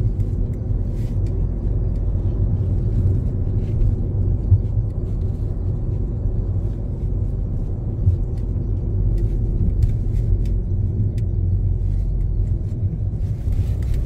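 Road noise inside a moving car: a steady low rumble of engine and tyres, with a few faint clicks.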